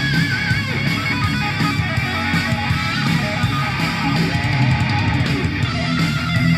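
Heavy rock music with distorted electric guitar over a steady bass, with a wavering lead guitar line near the start, played through a TDA8946 amplifier board and speakers for a sound test.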